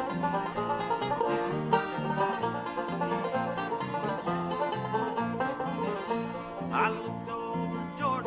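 Bluegrass music with banjo and acoustic guitars playing a lively tune over a steady, pulsing bass line.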